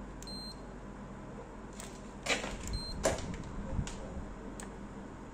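Two short high beeps from a handheld infrared thermometer taking readings, about two and a half seconds apart. Under them is the steady hum of the running air conditioner, with a few knocks from handling the thermometer near the middle.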